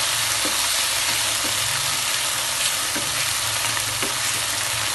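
Canned tuna with garlic and onion sizzling steadily in a nonstick frying pan over low heat, a wooden spatula stirring it with a few soft knocks and scrapes against the pan.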